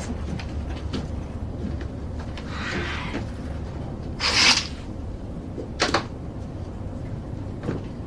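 Steady low airliner cabin hum. A soft swish comes about two and a half seconds in, then a louder, sharp swish at about four seconds as the galley curtain is pulled along its rail. Two short clicks follow later.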